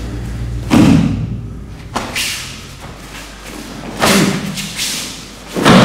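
Four heavy thumps of bodies and feet landing on a dojo training mat during grappling, about every one and a half to two seconds, the first and last the loudest.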